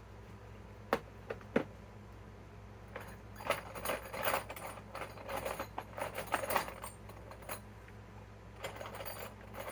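Small metal tool parts clinking and rattling as they are handled: a few sharp clicks, then a few seconds of busy jangling. These are likely bits and sockets being sorted through.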